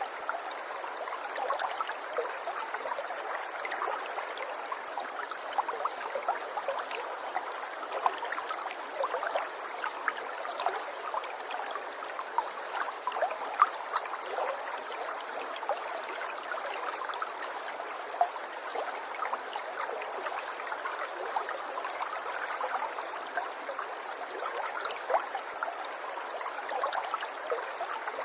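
Stream water running and babbling, a steady rush dotted with many small splashes and gurgles and no deep rumble.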